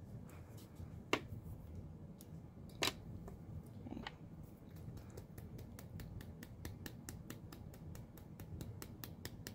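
Small clicks and knocks of art supplies being handled and set down on a craft table, the two sharpest about a second and three seconds in. In the second half, a quick, even ticking of about four to five a second.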